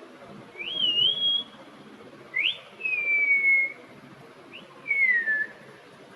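Pet parrot whistling three times: first a rising, wavering whistle, then two that jump up sharply and slide down.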